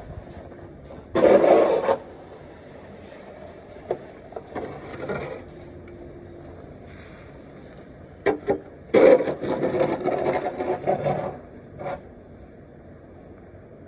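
Crunching and scraping in deep snow, in several separate bursts. The longest is a run of quick strokes in the second half.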